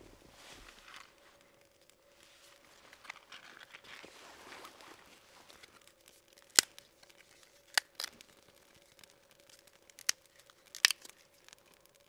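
Small wood fire in a Firebox stove being tended by hand: soft rustling and crackling, then five sharp cracks in the second half.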